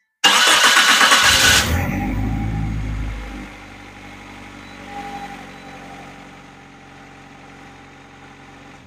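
1996 Geo Tracker's four-cylinder engine started on fresh spark plugs, wires, cap and rotor: it fires with a loud burst, then within about three seconds settles to a much quieter, steady idle.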